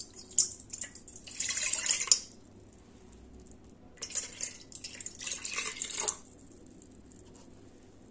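Milk poured from a plastic measuring cup into a stainless steel bowl, splashing in two pours of about two seconds each, one cupful at a time; the second pour starts about four seconds in.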